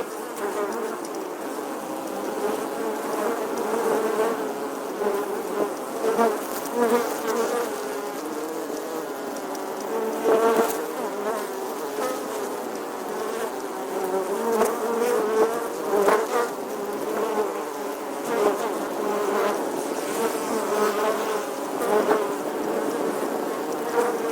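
Bees buzzing in a continuous drone whose pitch wavers, with several overlapping tones. It swells louder several times, most strongly around the middle.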